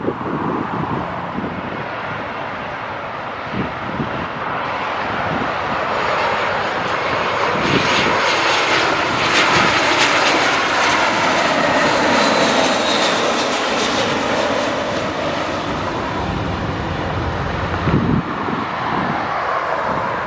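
Jet airliner passing low and close on its landing approach. The engine noise builds to a peak about halfway through, with a faint whine falling in pitch as it goes by, then eases away.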